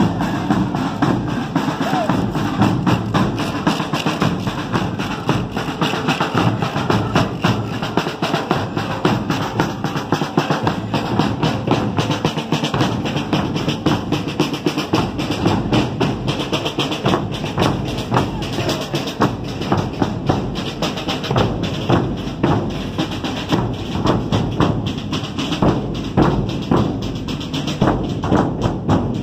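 Portuguese folk parade music: women singing with tambourines and an accordion, joined by a marching group of large bass drums (bombos) and snare drums beating a steady, dense rhythm.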